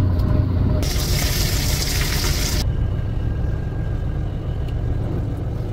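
Fish pieces frying in hot oil in a wok, a loud sizzle that starts about a second in and cuts off abruptly after about two seconds. Under it, and alone afterwards, a steady low engine rumble from the fishing boat.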